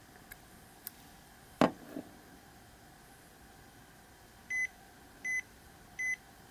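A few light clicks and one sharp click, then a Nova Max Plus glucose and ketone meter beeps three times, short and high-pitched, about a second apart, as it shows the error code E-5.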